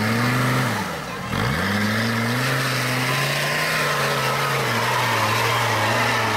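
Modified off-road 4x4's engine revving hard under load on a steep muddy climb. About a second in, the revs fall away sharply, then climb back and hold high and steady.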